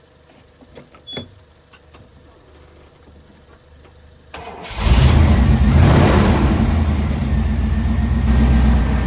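A few faint clicks, then about four and a half seconds in, the Chevy Tahoe's engine cranks briefly, catches and starts, then keeps running steadily at idle. It fires once the ignition coil, left unplugged, is reconnected, curing the crank-no-start.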